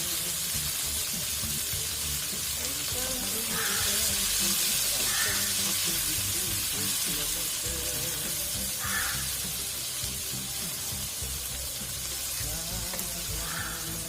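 Chopped leafy greens sizzling in oil in a hot frying pan, a steady hiss, under background music.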